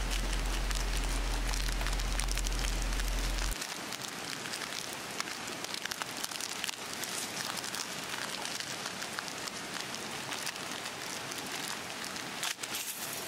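Dry instant mini ramen noodles being crushed and broken by hand inside their packet: a dense, steady crackling with fine crunching ticks. A low hum underneath stops about three and a half seconds in.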